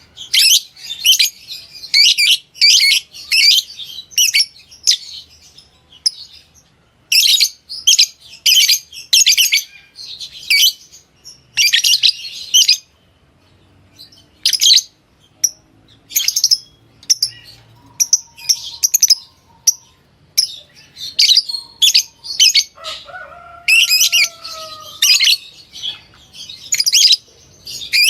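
Lovebirds chirping: shrill, high-pitched calls in quick clusters, with short pauses between clusters. A lower, falling whistled note comes in about 23 seconds in.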